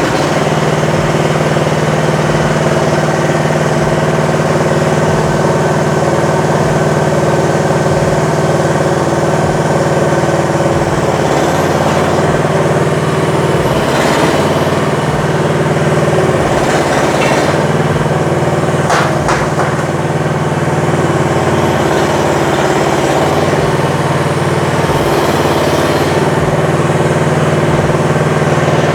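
Gasoline engine of a ZJG380 mini skid steer running steadily just after starting, holding an even pitch. A few sharp knocks come about halfway through.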